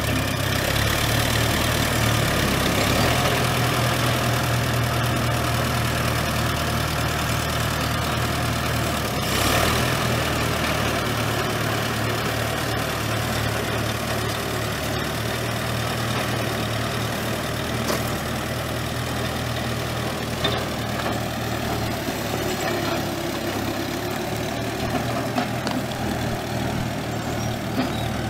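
The 1940 Allis-Chalmers W Speed Patrol's four-cylinder gas engine runs steadily at idle. There is one short knock about nine and a half seconds in.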